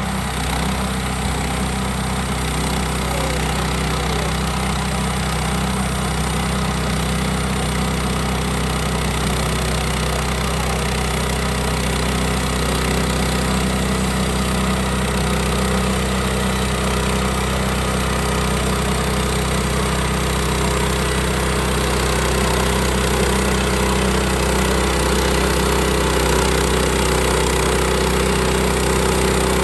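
A small engine running steadily at a constant speed, growing slightly louder near the end.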